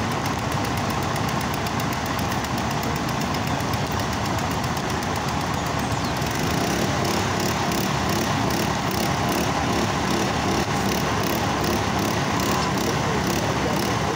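Engines idling steadily at the roadside, a continuous mechanical rumble and hiss.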